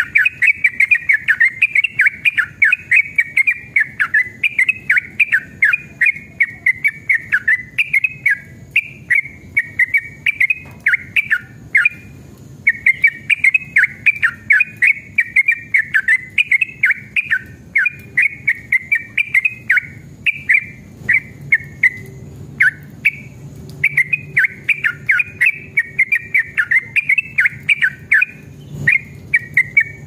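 Yellow-vented bulbul (trucukan) singing long, continuous runs of rapid chattering notes, broken by a few short pauses.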